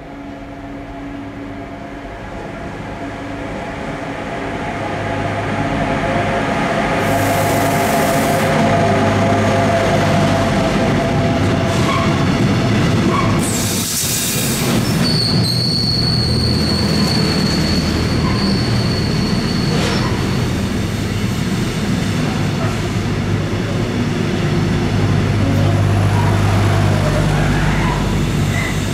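A freight train led by a Class 185 electric locomotive draws closer, growing steadily louder over the first six seconds, then its loaded pocket wagons with truck trailers roll past with a dense rumble of wheels on rail as it comes into the station. Midway a high, steady squeal rises from the train and lasts about four seconds.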